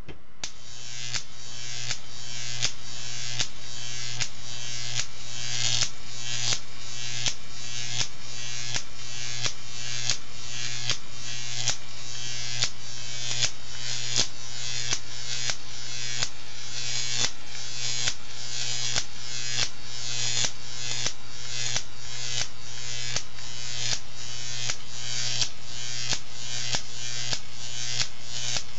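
Jacob's ladder high-voltage traveling arc buzzing and hissing as it climbs the wires, over a steady low hum. A sharp snap comes about three times every two seconds as the arc breaks at the top and restarts at the narrow gap at the bottom. The sound swells up over the first couple of seconds as the display powers on.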